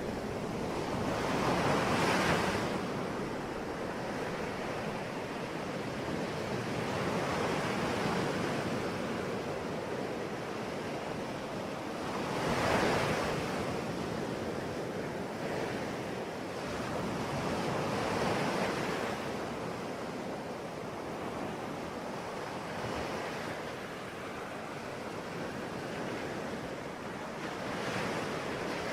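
Ocean waves breaking on a shore, a continuous wash of surf that swells and fades as each wave comes in, with the loudest breaks about 2 and 13 seconds in.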